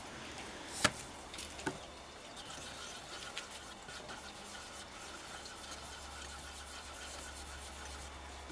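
Wooden stir stick mixing paint in a metal tin, a faint steady scraping and swishing. A sharp knock about a second in and a lighter one just under a second later.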